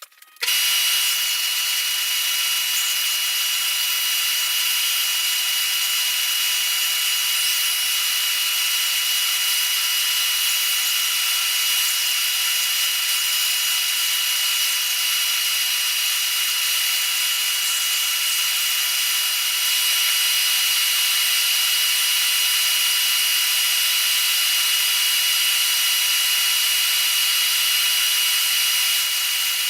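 Electric power sander starting up and running steadily, sanding flush the oak plugs glued into the back of an oak slab: a constant whine over a sanding hiss.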